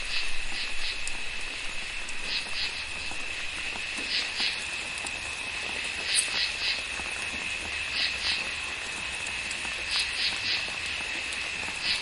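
Tropical rainforest frogs and insects calling after a storm. A steady high insect trill runs throughout, with short chirping calls in groups of two or three repeating about every two seconds. The last of the rain patter dies away over the first couple of seconds.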